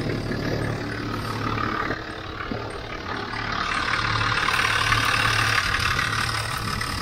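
A 4WD truck's engine idling steadily with a low hum. A hiss grows louder about halfway through.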